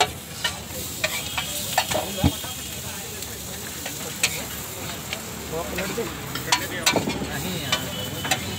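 Veg kebab patties sizzling in oil on a large flat tawa griddle, with a steel spatula scraping and knocking on the metal every second or so, most sharply about two seconds in and again near seven seconds.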